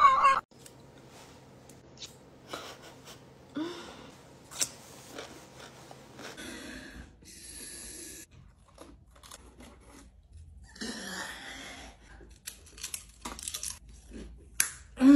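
Bolt cutters squeezing and crunching into a Pringles can, heard as scattered crackles and several short bursts of crunching and tearing.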